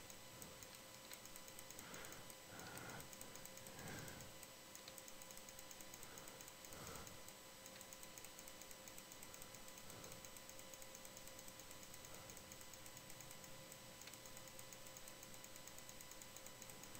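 Near silence: a faint steady hum and hiss, with a few faint soft noises a couple of seconds in and again about seven seconds in.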